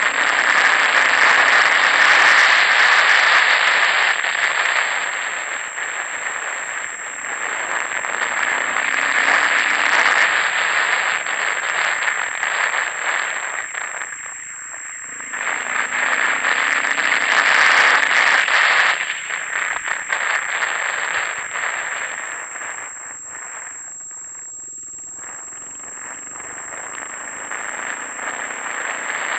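Dual-sport motorcycle riding on a dirt road, heard from a helmet camera: a loud rush of wind and road noise swells and fades with speed, dropping away twice when the bike slows. The engine sits faintly underneath, rising in pitch a few times as it pulls away.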